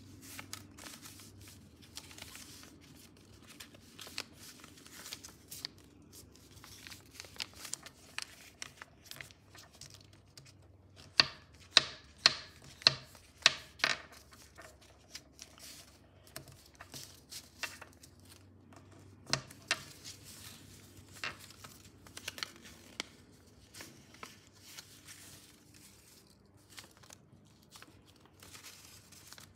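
A sheet of paper being folded by hand on a table: rustling and crinkling as it is handled and creased, with a run of about six loud sharp clicks near the middle and another a few seconds later.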